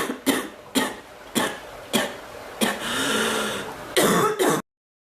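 A person coughing in a fit: about six sharp coughs roughly half a second apart, a longer drawn-out breath, then a last cough before the sound cuts off abruptly.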